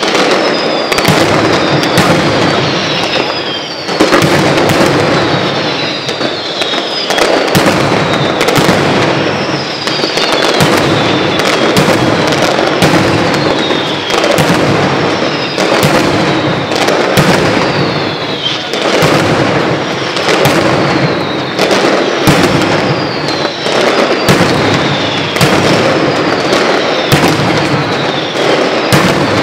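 Mascletà firework barrage: a dense, unbroken run of loud firecracker bangs, with high shrill whistles falling in pitch about once a second.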